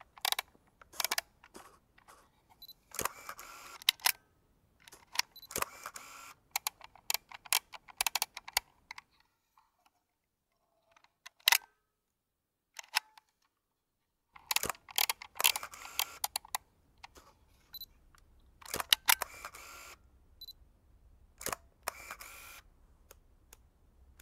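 Vintage mechanical film camera being operated: sharp shutter and lever clicks mixed with short rasping runs of its mechanism, coming in clusters with a quiet gap midway.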